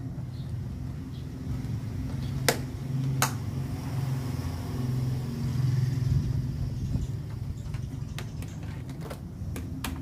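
Steady low hum of an idling engine, with a few sharp clicks as the camera cable and plastic wiring clips are handled: two about halfway through the first third, several more near the end.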